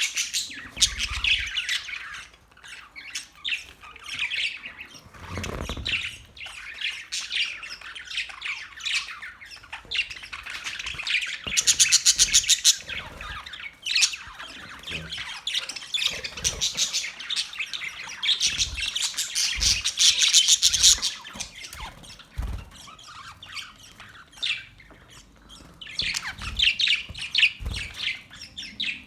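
Birds chirping and calling continuously in a dense chorus, with louder spells of rapid chattering about twelve seconds in and again around eighteen to twenty-one seconds, and a short lull near the end. A few soft low thumps are mixed in.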